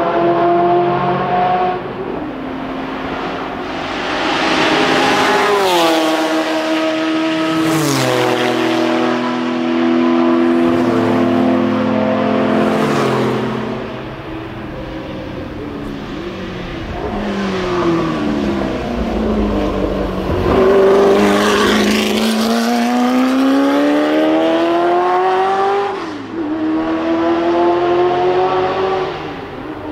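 Racing car engines on a circuit, heard over several passes: engine notes drop in steps under braking, then climb again as the cars accelerate away.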